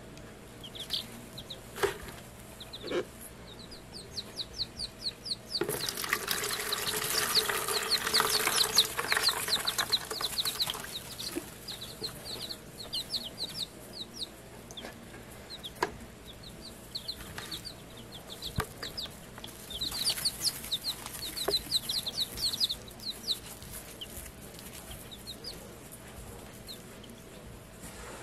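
Week-old chicks peeping, many quick high peeps a second, running on through the whole stretch. About six seconds in there are some five seconds of loud rustling, with a shorter rustle near twenty seconds and a few light knocks.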